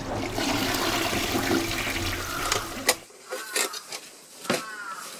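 A steady rushing, water-like noise for about three seconds that cuts off suddenly. It is followed by a few sharp knocks of a plastic box being set into a plastic storage case, with several short high chirps.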